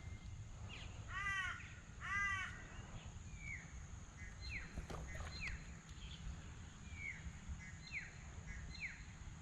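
A bird calls twice, about a second apart, each call about half a second long; then short falling chirps, fainter, repeat every second or so.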